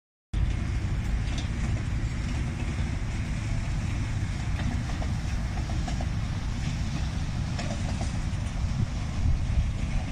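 Miniature park train's carriages rolling past on their track: a steady low rumble with a few faint clicks.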